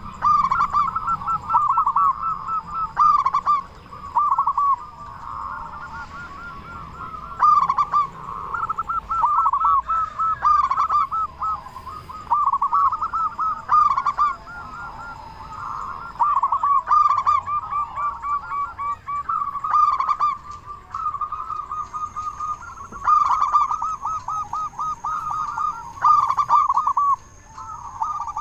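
Zebra dove (perkutut) cooing: quick runs of short staccato coos, one phrase after another, with brief pauses between bouts.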